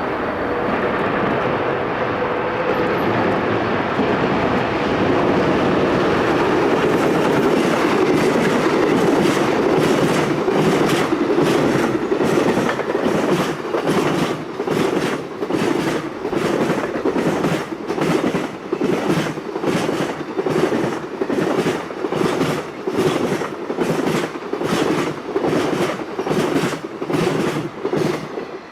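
Freight train passing close by: a steady rumble as the locomotive goes past, then the wagons' wheels clicking over rail joints in an even clickety-clack, roughly one and a half clicks a second, until the sound cuts off suddenly.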